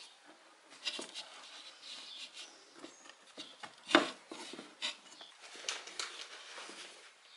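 Hands packing and pressing damp, crumbly Zoo Med Excavator clay substrate around a wooden branch in a glass tank: scattered crunching, rustling and patting, with one louder knock about four seconds in.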